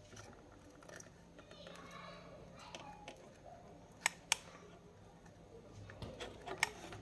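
A few sharp clicks over a faint background, two close together about four seconds in and more near the end.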